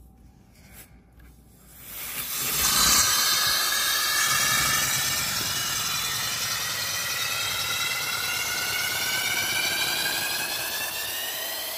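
A balloon-fed paper flat-twin air engine running: starting about two seconds in, a loud hiss of escaping air with a whistling tone that slowly rises in pitch.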